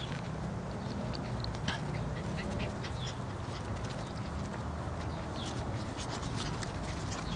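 Six-week-old Glen of Imaal Terrier puppies giving short, high squeaks and yips as they play, scattered throughout, over a low steady hum.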